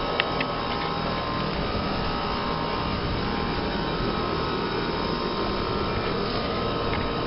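American Standard central air conditioner outdoor condensing units running: a steady whoosh of condenser fans with a steady mechanical hum underneath.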